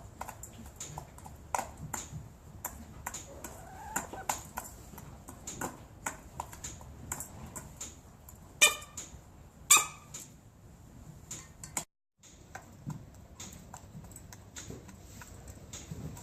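Chickens sneezing: two loud, short squeaky sneezes about a second apart near the middle, among many small clicks and taps.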